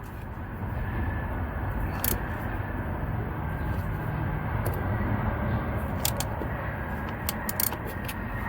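Ratcheting wrench clicking in short, scattered runs while tightening a 13 mm bolt, over a steady low rumble.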